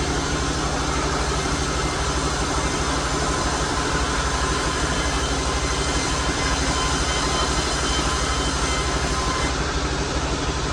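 Sawmill machinery running steadily: a low engine-like hum under a continuous whirring hiss, with a few faint steady high tones.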